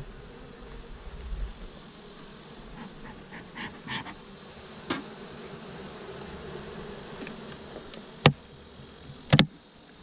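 Honeybees buzzing steadily around an open hive, with a few sharp knocks of wooden frames and hive boxes as the hive tool works the frames and the super is handled. The two loudest knocks come near the end, about a second apart.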